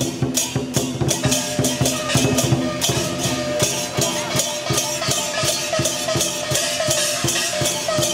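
Chinese dragon-dance percussion: a drum beaten fast and steadily with cymbals crashing along, several strokes a second without a break.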